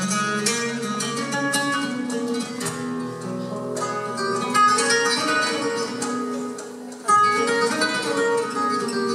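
Two nylon-string acoustic guitars playing a flamenco-style duet, with dense plucked notes and strummed chords. There is a brief dip in level about seven seconds in, followed by a loud accented chord.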